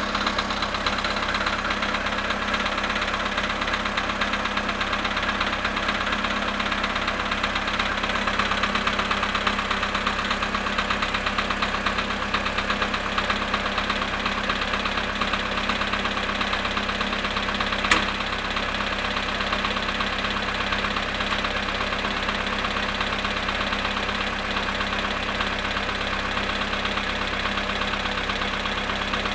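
Volkswagen Polo Sedan's petrol engine idling cold, after standing 22 hours at −2 °C, with a steady rapid knocking. A single sharp click about eighteen seconds in.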